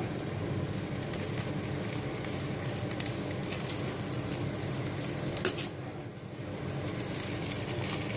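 Sweet coloured rice sizzling in ghee in a hot pot while it is mixed with a spoon, a steady crackle with one sharp knock about five and a half seconds in.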